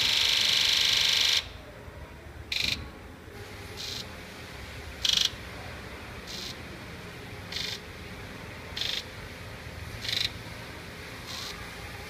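The eight injectors of a 2001 Ford 7.3 Powerstroke V8 diesel buzzing during a scan-tool injector buzz test with the engine off. All of them buzz together for about the first second and a half, then each fires alone in turn, eight short buzzes about a second apart. Some buzzes are noticeably weaker than others; a muffled buzz instead of a sharp clatter marks a sticking injector, and several here are taken to be sticking.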